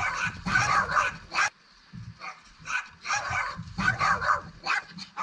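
Small pet dog barking repeatedly at a fox in high-pitched yaps, about two a second, with a short break about one and a half seconds in.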